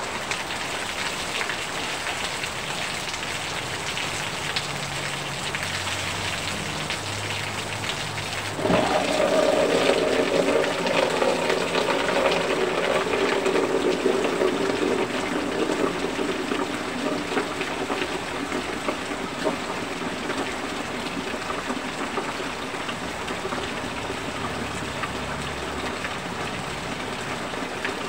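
Heavy rain falling, with streams of runoff pouring down and splashing onto a person and the wet pavement. About nine seconds in, a sudden louder rumble sets in and fades away over the next several seconds.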